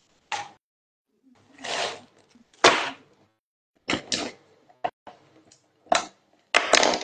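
A string of short rustles and knocks with silence between them: objects being handled close to the microphone, one sharper knock near the middle.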